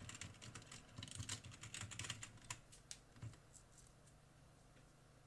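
Typing on a computer keyboard: a quick run of keystrokes for about three seconds, then it stops.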